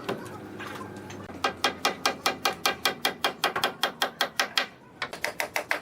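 A fast, even run of short, sharp strokes, about six a second, from a tool working wood. The strokes stop briefly, then a shorter run of them follows near the end.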